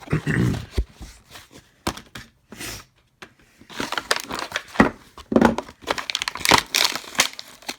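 Product packaging being handled and opened by hand, with irregular crinkling and rustling that grows busier from about the middle on.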